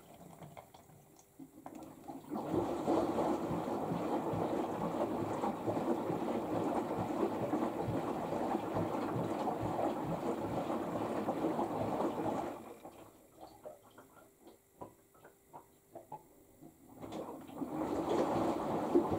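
LG AiDD Steam direct-drive front-loading washing machine in its final rinse: the drum turns and sloshes the rinse water for about ten seconds, stops for about five seconds with only faint drips and ticks, then starts sloshing again near the end.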